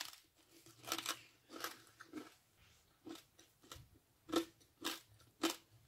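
Crispy fried pork-rind chicharrón being chewed: a string of short, crisp crunches, roughly two a second, with brief gaps between them. The crunch shows the skin has fried crisp.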